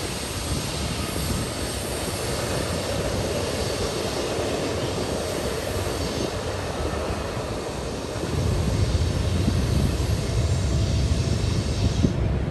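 A freight train rolling along: a steady rush of wheels on rail, with a deeper rumble growing louder about eight seconds in.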